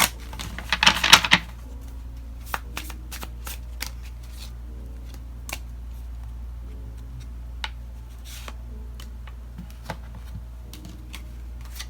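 Tarot cards being shuffled by hand: a loud burst of riffling in the first second or so, then scattered single card snaps and taps as the deck is worked and cards are drawn.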